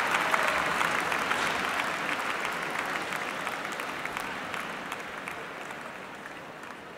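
Audience applause, a dense crackle of clapping that fades steadily away.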